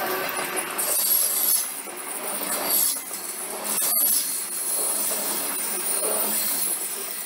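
A train running past on the main line, its wheels on the rails making a steady, loud rush that swells and eases, with a faint high whine above it.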